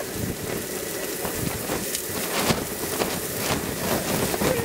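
Strong wind gusting, with a steady rain-like patter and irregular light knocks and rattles.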